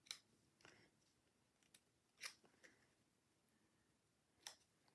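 Near silence broken by a handful of faint, short clicks of small cardstock pieces being handled and pressed onto a paper card on a tabletop.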